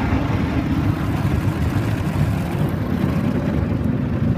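Rotating cloth brushes of a Mark VII ChoiceWash XT soft-touch rollover car wash scrubbing the car in a wash of water, heard from inside the cabin as a loud, steady, deep churning noise.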